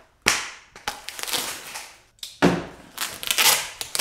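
Long fishing-rod shipping tubes being handled and knocked together: a sharp knock just after the start, a heavier bump about two and a half seconds in, then scraping and rustling as the tubes are shifted.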